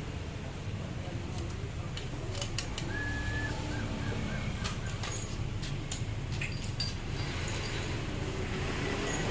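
Scattered metallic clicks and clinks of parts and tools being handled while a scooter's CVT is put back together, over a steady low hum. A brief high wavering tone sounds about three seconds in.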